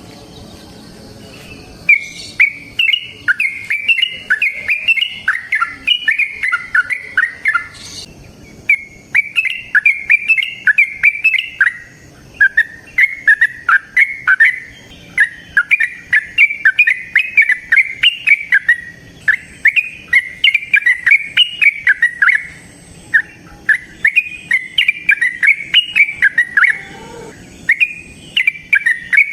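Yellow-vented bulbul (trucukan) singing long, rapid, bubbly phrases of chirping notes. The song starts about two seconds in and comes in several runs of a few seconds each, separated by short pauses.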